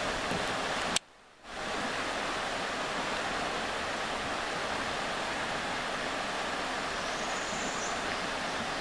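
Steady rush of whitewater pouring through a river rapid. About a second in there is a sharp click and a half-second gap, then the rush carries on.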